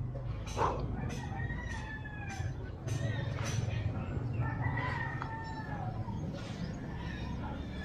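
A rooster crowing twice, each crow a long arching call, with a sharp knock about half a second in and a few light clicks.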